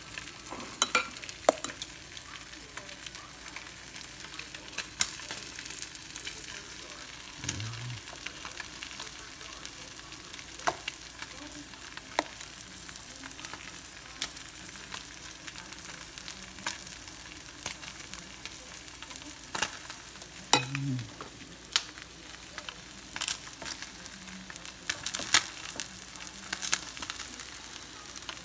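Slices of Spam frying in a nonstick pan: a steady sizzle with scattered sharp pops of spitting fat.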